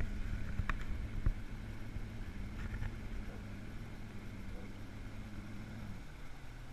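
Outboard motor of a bass boat running at steady speed, its note dropping about six seconds in as it eases off. A couple of short knocks sound about a second in.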